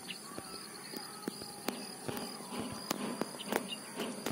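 Faint sloshing and small splashes of lake water as a hooked tilapia is drawn up to the surface on a line, with scattered sharp ticks. Insects chirr steadily and high-pitched throughout.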